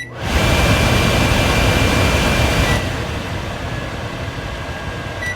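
Control-panel beep, then the vent fan of a GE JNM3163 over-the-range microwave running on high: a loud rush of air with a thin whistle over it. It eases down a little about halfway, and another beep sounds near the end.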